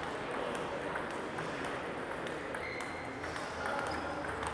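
Steady background noise of a table tennis hall: a murmur of voices, a few light clicks of ping-pong balls from other tables, and a couple of brief high squeaks.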